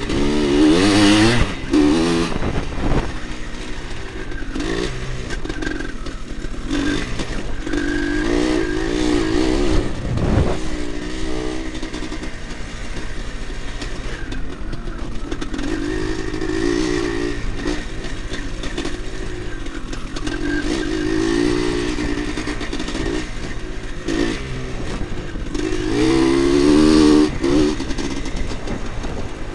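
1986 Husqvarna 400 two-stroke motocross engine, heard through the bike's onboard camera, revving up and easing off every few seconds as it is ridden around a dirt track.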